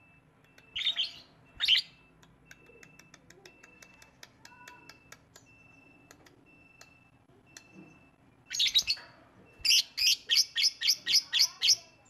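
Fischer's lovebird calling: two shrill chirps about a second in, soft rapid ticking through the middle, then a burst of calls and a fast run of about ten shrill chirps, some five a second, near the end.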